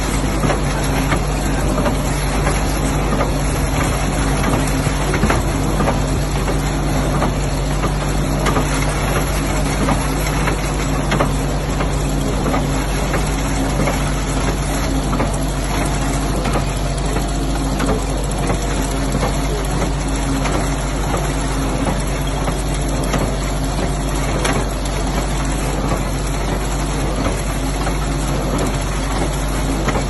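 International Harvester McCormick 55W Electrall baler running, driven by its electric motor: a steady mechanical hum with a light clatter.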